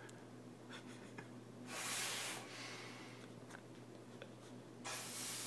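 Faint hiss of air sucked hard through a long thin tube held in the mouth, in two long pulls, one about two seconds in and another starting near the end, with a few faint clicks between.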